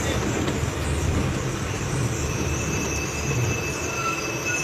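Volkswagen 17.230 OD bus running on the move, a steady low engine rumble with a thin high whine that comes in about two seconds in and holds.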